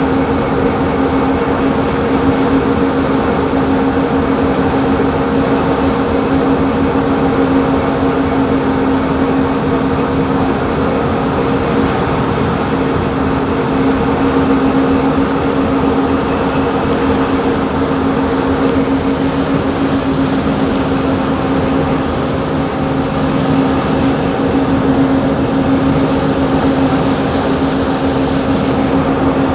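Boat engine running steadily under way: a constant drone with a strong, even hum that does not change in pitch.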